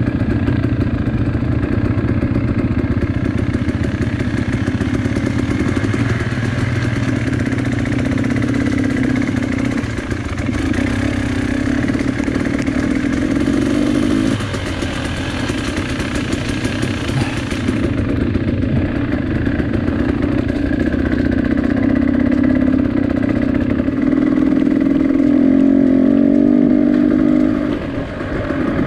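A vehicle engine running steadily and loudly, its note shifting a little about halfway through and again near the end. A hissing, rushing noise over it cuts off abruptly about two-thirds of the way in.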